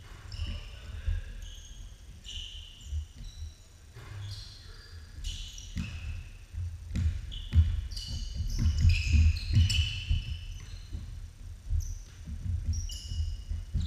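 Basketball being dribbled and bounced on a hardwood gym floor, with sneakers squeaking in short bursts as players cut and stop, in a large echoing gym. The action grows busier and louder about halfway through.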